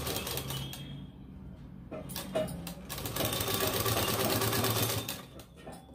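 Sewing machine running and stitching a seam through fabric in two spells: briefly at the start, then again for about two seconds in the second half before it stops.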